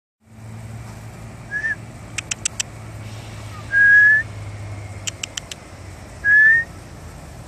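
A person whistling to call a cat: three whistled notes, each rising slightly, the middle one the longest. Between the notes come two quick runs of four clicks.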